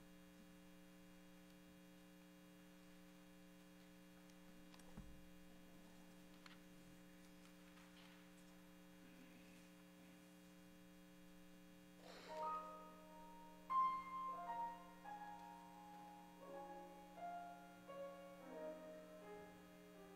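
Steady electrical hum with a soft thump about five seconds in, then about twelve seconds in a piano begins the introduction to a choir anthem, playing a melody of single notes over chords.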